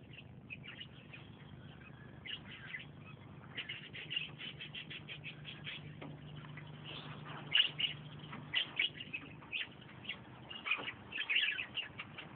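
Birds chirping in quick short bursts, the clusters coming more often in the second half, over a faint steady low hum.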